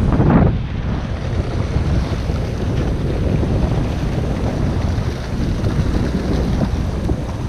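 Wind buffeting the microphone over the steady wash of the sea along a fishing boat's hull, with a short louder rush right at the start.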